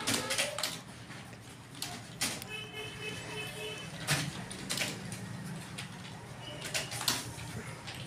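Computer keyboard keys clicking at an uneven, slow pace as a student types a bottom-row typing test. A steady high tone sounds for a second or so between about two and four seconds in.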